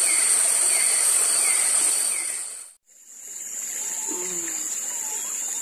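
Tropical riverside ambience: a steady high insect drone with a short falling chirp repeating about every 0.7 s. It cuts off suddenly about halfway through, and another steady insect drone follows, with scattered birdlike calls.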